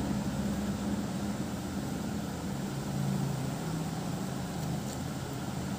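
Steady low mechanical hum with a rumble underneath, its low tones shifting slightly in pitch about halfway through.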